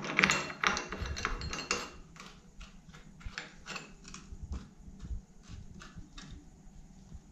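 Chrome tap cover being worked back over a shower tap's spindle by hand: a quick run of small metal clicks and scrapes in the first two seconds, then sparser, fainter ticks.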